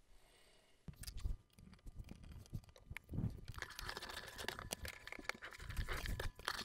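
Light clicks, taps and rustles of a removed open-frame 5-volt power supply board being turned over in the hands and set down on a cutting mat, starting about a second in.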